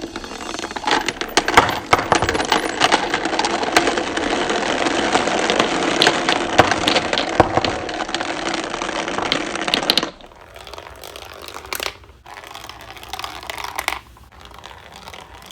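Plastic toy gumball capsules clattering together in a dense, continuous rattle of clicks for about ten seconds, then only a few scattered clicks.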